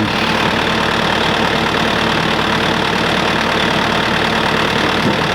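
Concrete mixer running steadily, a constant mechanical drone with an even hum.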